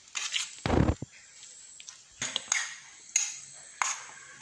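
Metal spoon scraping and clinking against a stainless steel plate while mixing a mashed banana, grated coconut and sugar filling: a string of separate scrapes, with a heavier low knock about three quarters of a second in.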